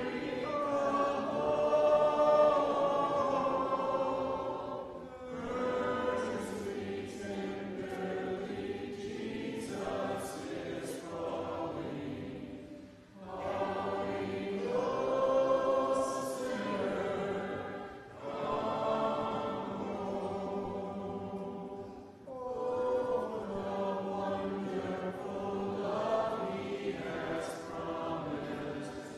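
Church congregation singing a hymn a cappella, with no instruments, in long held phrases separated by brief pauses for breath.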